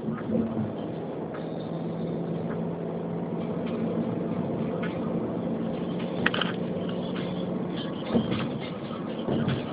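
Road and engine noise from inside a moving vehicle: a steady low hum with a few short knocks and rattles.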